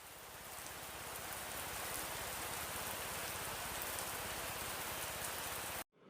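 Steady rain, a dense hiss with fine pattering, which cuts off abruptly near the end.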